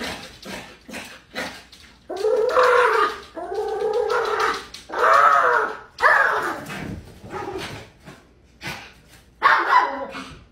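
Small fluffy dog whining and yelping in several drawn-out calls that waver in pitch, with short sharp clicks between them as it paws at a glass door.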